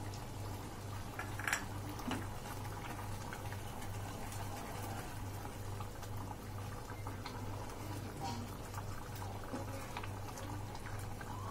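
Thin tomato-and-spice gravy bubbling at a boil in a non-stick kadai, with small pops and a wooden spoon stirring through it, over a low steady hum.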